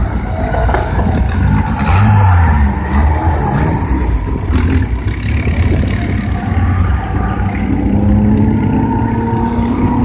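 Rally car engine running hard, its pitch rising and falling as it revs.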